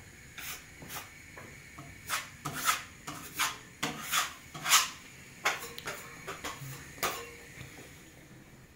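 About a dozen short, irregular scraping and rubbing strokes with light knocks, several with a quick upward sweep, dying away near the end.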